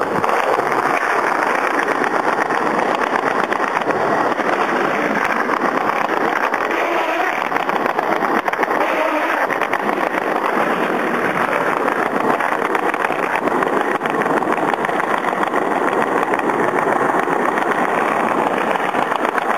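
Skateboard wheels rolling steadily over pavement.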